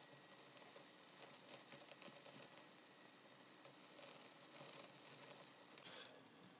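Herb omelette (koko sabzi) frying in oil in a nonstick pan, a faint, steady sizzle with small crackles, and a brief louder crackle about six seconds in.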